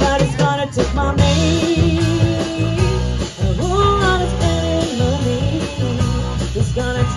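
A band playing a blues-rock song live, with guitar prominent and a sliding, bending melody line about halfway through.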